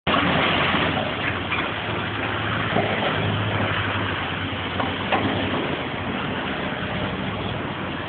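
Diesel engine of a high-reach demolition excavator running steadily, under a dense rattle of concrete and rubble breaking away, with a few sharp knocks of falling debris.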